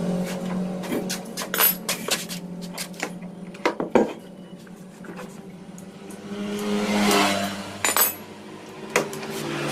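Metal tools and engine parts clinking and knocking several times, over the hum of a motorcycle engine running, which swells briefly about two-thirds of the way through.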